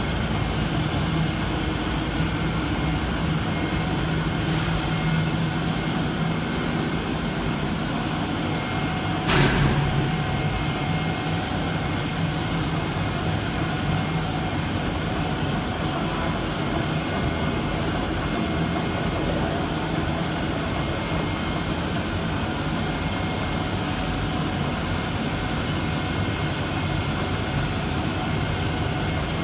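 Four-colour flexographic paper printing press running steadily, a mechanical drone with a low hum and a faint high whine. There is one sharp knock about nine seconds in.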